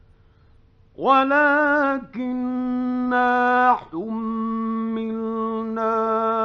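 Solo male voice chanting the Quran in drawn-out melodic notes, in an old 1950s radio recording. After about a second of faint background hiss, the voice comes in and holds long notes on a nearly steady pitch, broken twice by short pauses.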